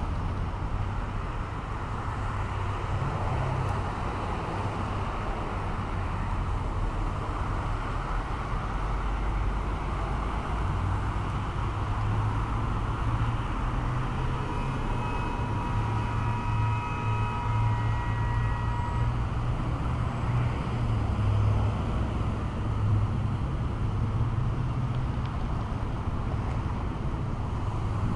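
Steady street traffic noise, cars passing with a low rumble. A faint high tone comes and goes for a few seconds midway.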